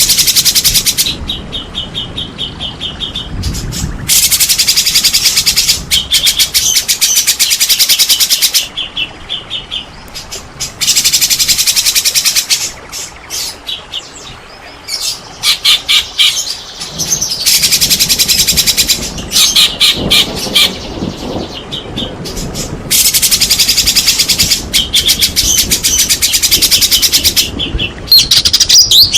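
White-rumped shama (murai batu) singing loudly and aggressively as a lure: bursts of very fast, chattering high notes lasting a few seconds each, with shorter runs of sharp repeated notes in between.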